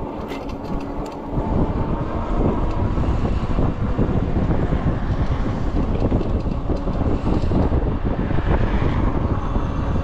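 Wind buffeting the microphone on a moving bike, with the rush of the ride underneath. It gets louder about a second and a half in as the bike picks up speed, then stays steady.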